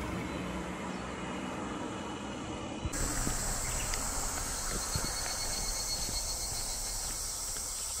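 Steady, high-pitched insect chorus, typical of summer cicadas, which comes in about three seconds in over a low outdoor rumble.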